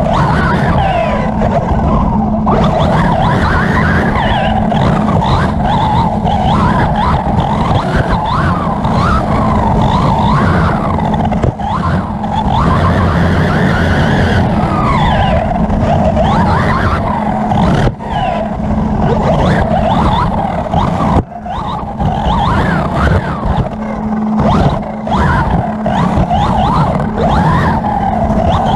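1:8 scale electric R/C buggy heard from on board, its Hobbywing 3600kv brushless motor and gearing whining up and down in pitch with the throttle over a steady drivetrain hum and rattle. A few sharp knocks come in the second half.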